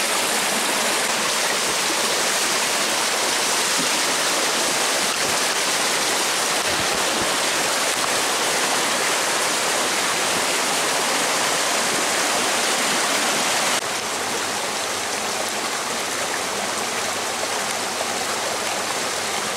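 A small brook trout stream rushing over rocks and riffles, a steady hiss of flowing water. The rush drops slightly in level about fourteen seconds in.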